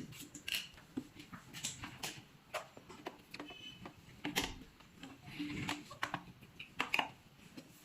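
Hard plastic vacuum-cleaner accessories and tubes clicking and knocking as they are handled and fitted into storage on the cleaner, in irregular taps. The motor is not running.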